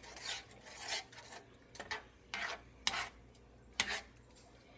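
Spoon stirring and scraping around a pot of chicken and melting Velveeta cheese, in about six separate scraping strokes.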